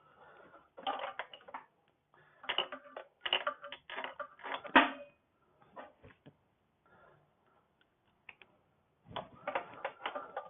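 Metal hand tools working on a scooter's muffler bolts: several runs of quick clicks and clatter, with one sharper metal knock in the middle.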